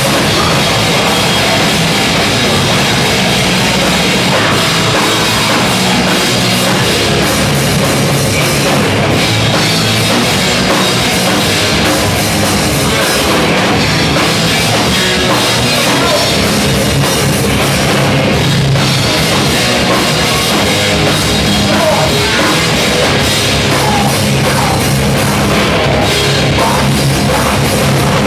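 Loud rock music with a drum kit, playing continuously.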